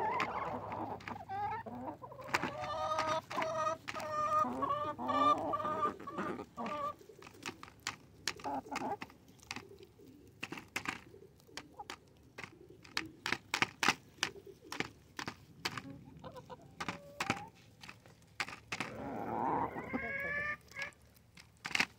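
Hens clucking while pecking food from an aluminium pie tin, beaks tapping sharply and often on the tin. The clucking comes in a long run over the first few seconds and again near the end, with quicker taps in between.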